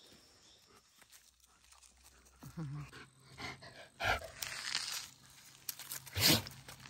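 Long-haired German Shepherd giving a short low grunt that falls in pitch about two and a half seconds in, then a few short scuffs as it walks on a gravel track.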